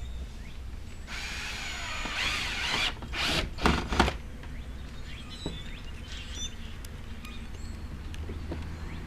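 A power drill runs for about two seconds, its pitch wavering as it works, then gives three short loud bursts around four seconds in; this is drilling 1/4-inch holes through a plastic car fascia for rivets. Faint clicks and taps follow.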